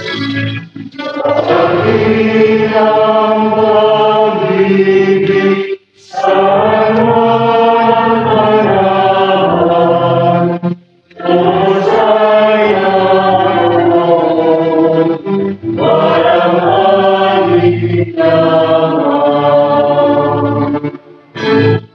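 A slow devotional hymn sung in long held phrases, with short breaks between phrases every few seconds.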